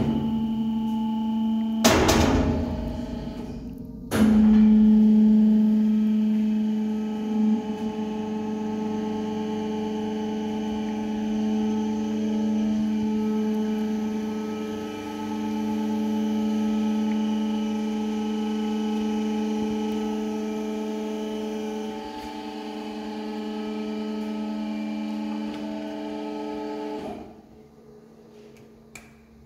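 Laska Z-arm mixer's electric drive running with a steady pitched hum. A short noisy burst comes about two seconds in, the hum jumps louder about four seconds in, and it cuts off a couple of seconds before the end.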